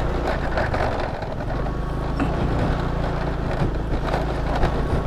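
Motor scooter engine running at low speed over a rough, rocky dirt track, with scattered knocks and rattles from the bumps. The engine drone eases off briefly about a second in, then picks up again.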